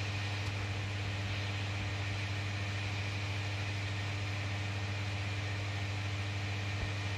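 Steady electric hum and airy hiss of a Ferris wheel cabin's climate-control fan, heard inside the closed cabin, running evenly without change.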